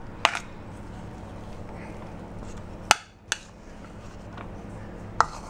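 A few short, sharp knocks of a plastic measuring cup against a plastic bowl as a cup of peanut butter is tipped and shaken out, over a faint steady low hum.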